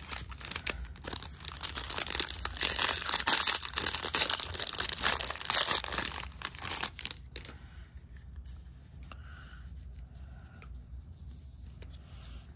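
Foil wrapper of a baseball card pack (Bowman Draft jumbo) crinkling and tearing as it is ripped open by hand, loud for about seven seconds. After that comes a softer rustle as the cards are handled.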